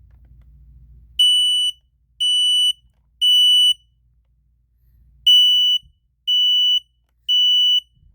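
Kidde 0915E smoke alarm sounding the temporal-three pattern, the standard fire evacuation signal. It gives three half-second high beeps, pauses, then gives three more.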